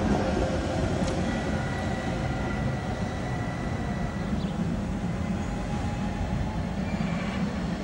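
A Tatra KTNF6 tram (a rebuilt KT4 with a low-floor middle section) runs past on the rails and moves away. Its wheel and running-gear rumble eases off after the first couple of seconds, and a faint steady high tone is heard for a couple of seconds early on.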